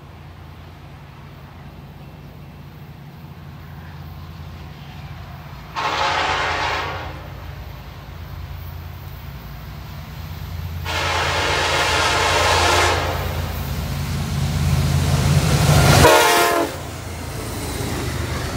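Freight train approaching and passing: the Kansas City Southern lead locomotive's diesel engine rumble grows steadily louder while it sounds its air horn three times, the last blast the loudest and shortest. The engine rumble drops off suddenly as the locomotive goes by, leaving the lighter rolling noise of double-stack intermodal cars.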